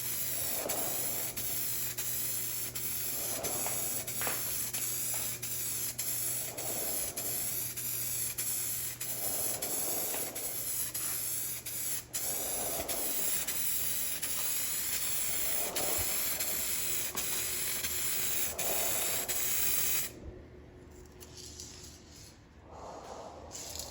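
Aerosol rattle can of automotive paint spraying in a long continuous hiss that swells and fades every few seconds, with a brief break about halfway. It stops a few seconds before the end.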